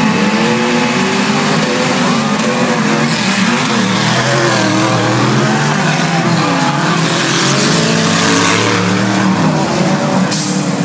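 Several 4WD off-road racing vehicles' engines running and revving together, their pitches overlapping and rising and falling as they accelerate and back off. A short burst of hiss near the end.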